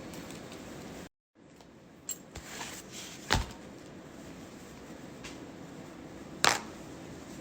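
Small handling noises over a steady hiss: a short rustle, then two sharp clicks about three seconds apart. The sound cuts out completely for a moment about a second in.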